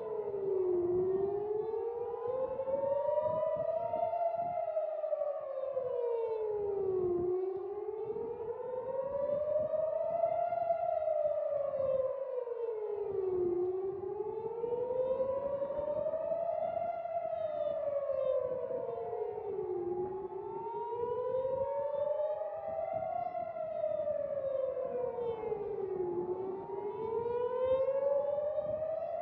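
Civil-defence air-raid sirens wailing, their pitch slowly rising and falling with one cycle about every six seconds, and more than one siren heard slightly out of step. The sound is a missile alert telling people to take shelter.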